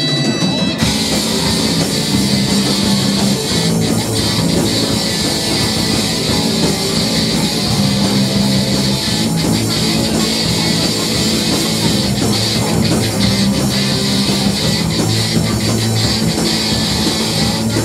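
A rock band playing live, with electric guitar, bass and drum kit. A thinner passage gives way under a second in to the full band playing loud and dense throughout.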